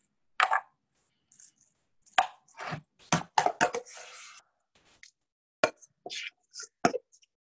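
A kitchen utensil tapping and knocking irregularly against a terracotta baking dish while a layer of pumpkin kibbeh mixture is spread and smoothed in it. There is a brief scrape about four seconds in.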